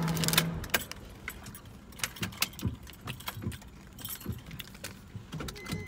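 Car keys jangling: a run of irregular small metallic clicks and rattles as she gets ready to drive off.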